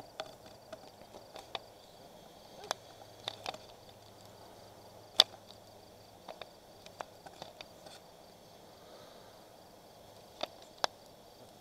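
Fireworks crackling and popping: scattered, irregular sharp cracks, with the loudest about five seconds in and two more near the end, over faint steady insect chirring.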